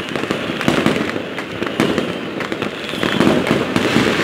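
Many fireworks and firecrackers going off at once across a city: a dense, continuous crackle of overlapping bangs and pops with no break.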